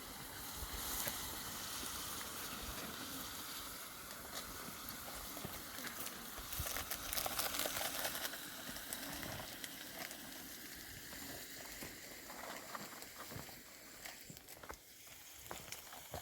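Rustling, crackling noise with many scattered light clicks. There is a low rumble of wind on the microphone in the first half.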